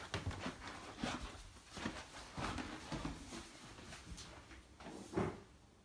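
Footsteps walking across a hard floor, irregular knocks about one or two a second, with a louder knock about five seconds in.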